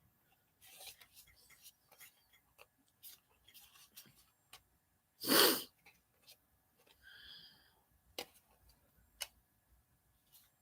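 Light clicks and taps of small product packaging being handled, with one short, loud rush of noise about five seconds in and two sharper clicks near the end.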